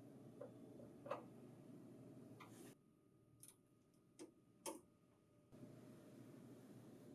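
Near silence with a handful of faint, scattered clicks: a screwdriver tightening the mounting-bracket screws on the printer.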